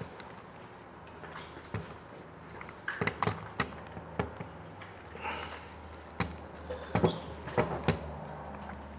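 Irregular small clicks and knocks, about ten in all, from test leads and plugs being handled and moved on a board of carbon resistors, switching the bridge over to the next resistor.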